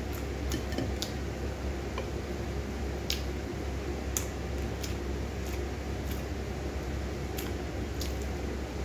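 Close-up eating sounds of fried fish and arugula leaves being chewed: sharp, irregular crisp clicks about once a second, over a steady low hum.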